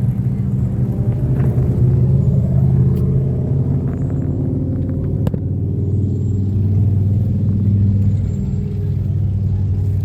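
A car engine running nearby with a steady low rumble, its pitch shifting slightly partway through, and one sharp click about five seconds in.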